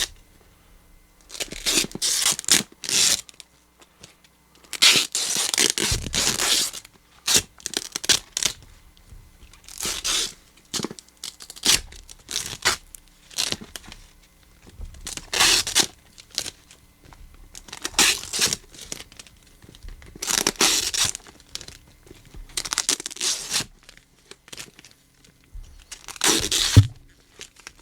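Duct tape being peeled and ripped off a taped-up package, in repeated tearing rips every two to three seconds, some short and some drawn out. Near the end the microphone is bumped with a sharp thump.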